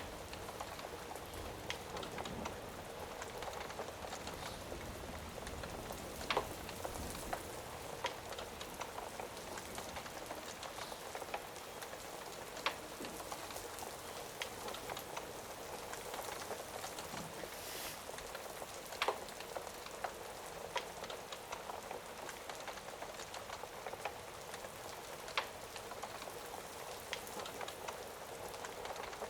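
Rain and crackling-fire ambience: a steady hiss of rain with a sharp pop about every six seconds.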